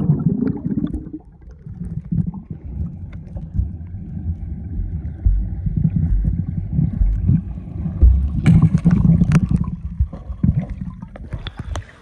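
Wind rumbling on the microphone over river water lapping and splashing around a raft, with a few sharp knocks or splashes about nine seconds in.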